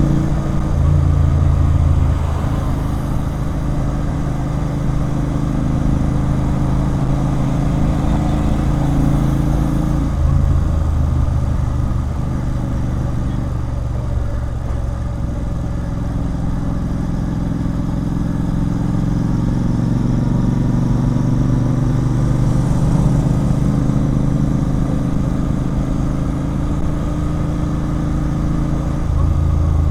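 Royal Enfield Continental GT 650's parallel-twin engine through an aftermarket Red Rooster Performance exhaust, running at fairly steady revs, its note shifting a few times as the throttle changes.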